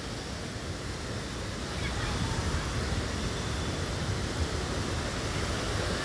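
Steady rushing of water from the river cascades, a little louder about two seconds in.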